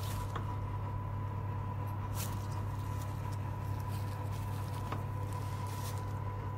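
Steady low hum with a thin, faint high whine: a built-in electric pizza oven running at full cooking heat with its fans going. A few faint ticks sound over it.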